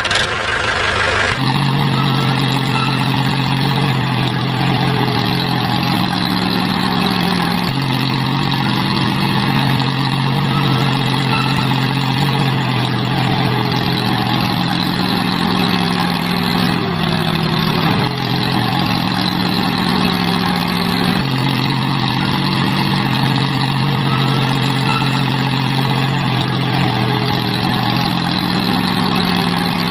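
Small motor of a DIY mini tractor model running steadily. Its low hum shifts between two pitches every few seconds over a dense buzzing whir, starting about a second in.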